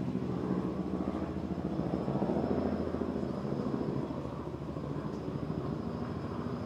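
A steady low engine rumble, like an aircraft or vehicle passing at a distance; it swells about two to three seconds in and eases off toward the end.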